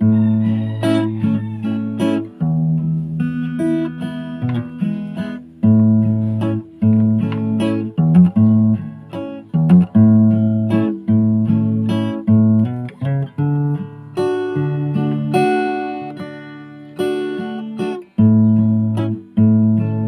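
Background music: a plucked acoustic guitar melody over bass notes.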